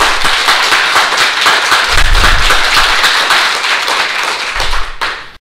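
Audience applauding with dense clapping, which cuts off abruptly near the end.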